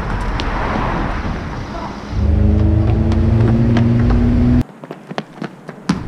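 A car engine running close by, first as a rush of noise and then, about two seconds in, a loud steady hum with a clear note. It cuts off abruptly after about four and a half seconds. Afterwards come a few light knocks of a football being kicked on asphalt.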